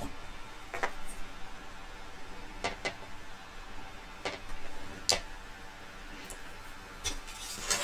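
Scattered light clicks and taps, about seven, from a paint brush, paint palette and plastic model-kit parts being handled on a cutting mat during wash painting.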